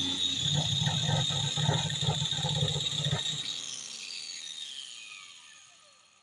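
Angle grinder with a flat carving disc grinding into wood, chattering against the workpiece for about three seconds. It is then switched off, and its whine falls in pitch and fades as the disc spins down.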